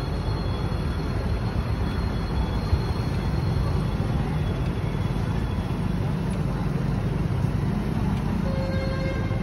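Steady outdoor background noise with a heavy low rumble.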